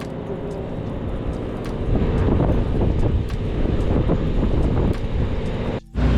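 Fishing boat's engine running with a steady hum, growing louder about two seconds in; the sound drops out abruptly near the end.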